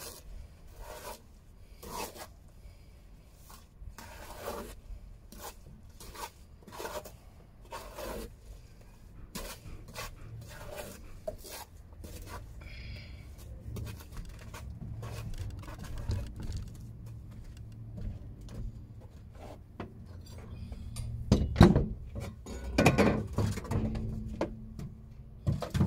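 Irregular scraping and rubbing with light knocks, from a mason's trowel working mortar and bricks. A few louder knocks come about three-quarters of the way through.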